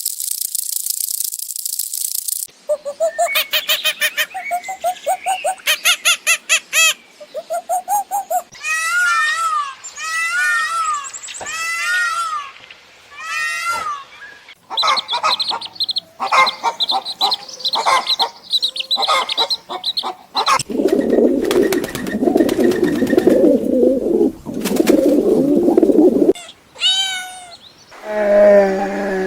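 A run of different animal calls, mostly bird calls and chirps, changing every few seconds. It opens with a brief hiss, goes through rapid repeated calls and sweeping chirps, and ends with a short rising call.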